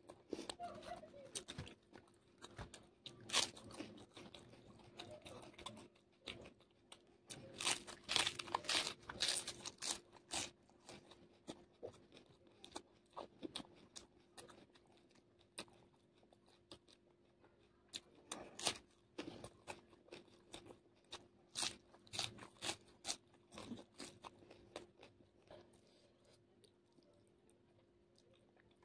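Close-miked chewing of raw cabbage leaf dipped in chilli sauce, with repeated crisp crunches and wet mouth clicks, and a dense run of crunches about eight seconds in.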